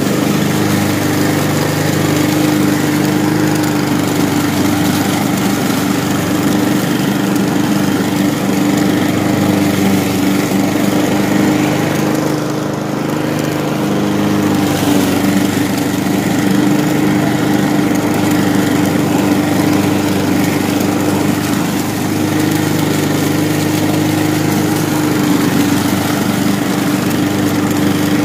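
Walk-behind gasoline lawn mower running steadily at full throttle while cutting grass. The sound dulls briefly about halfway through.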